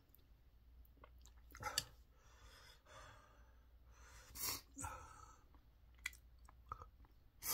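A man chewing a mouthful of rice in broth, with soft mouth clicks and audible breaths, and one sharper breath through the nose about four and a half seconds in.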